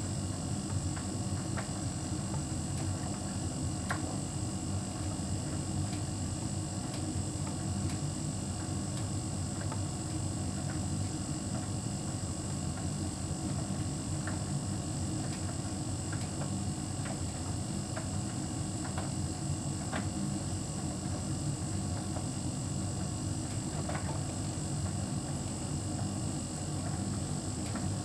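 Hotpoint heat pump tumble dryer running steadily: a constant low machine hum with a few high steady tones above it, and occasional faint clicks.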